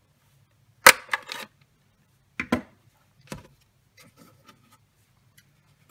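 A handheld 3/4-inch circle paper punch snapping through cardstock, punching a half-moon notch: a sharp click about a second in and another about two and a half seconds in, with smaller clicks after each and light paper handling near the end.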